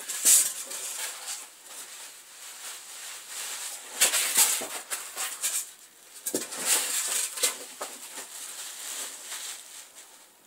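Rustling and crinkling of packing material and cardboard being handled and rummaged through, in irregular bursts: at the start, about four seconds in, and again around six to seven seconds in, dying away near the end.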